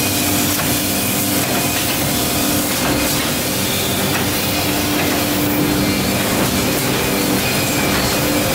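Yoshino bindery line running: a steady, dense mechanical noise with a few even hum tones underneath, unchanging throughout.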